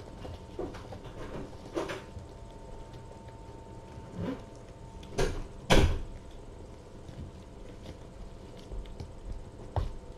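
A few irregular bumps and knocks, the loudest two close together about five to six seconds in, over a steady electrical hum.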